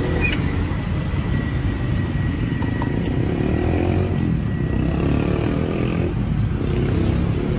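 Roadside motorcycle traffic: engines running steadily close by. A faint, thin whine runs through the first five seconds or so.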